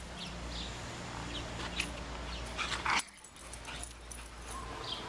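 A dog whimpering softly.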